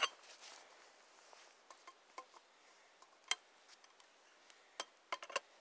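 Faint scattered clicks and taps from handling a shotgun, with one sharper click about three seconds in and a quick cluster of clicks near the end.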